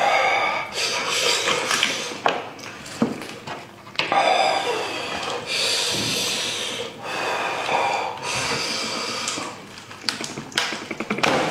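Wet squelching and tearing of a sauce-soaked spiced sheep's head being pulled apart by hand, meat and gristle separating from the bone, with a few short clicks.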